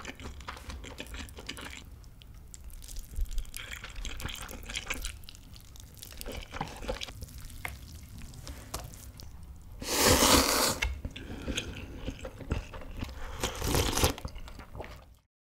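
Close-miked eating sounds: biting into and chewing a rice burger, then slurping cup-ramen noodles, loudest about ten seconds in, and sipping from a bowl near the end.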